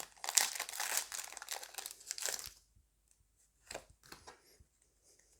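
Foil Pokémon booster pack wrapper being torn open and crinkled, stopping about two and a half seconds in; a couple of faint clicks follow.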